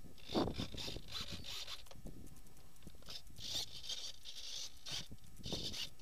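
Wind gusting over the microphone of a camera mounted on a handheld foam model plane, mixed with scraping and rubbing as the foam airframe is handled. It comes as irregular hissing rushes with a few dull knocks, and no motor sound.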